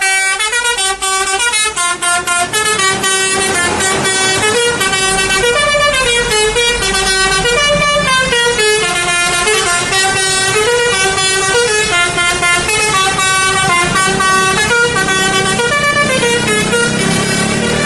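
Basuri telolet bus horn, a multi-tone horn set, playing a loud tune of quick stepped notes without pause.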